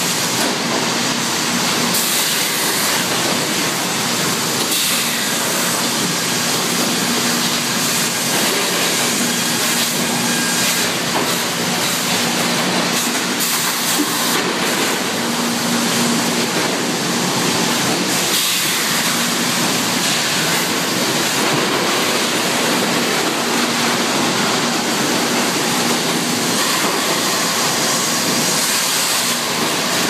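Steady, loud din of hardwood sawmill machinery: conveyors, chain transfers and live rollers moving sawn cants, with a low hum that comes and goes.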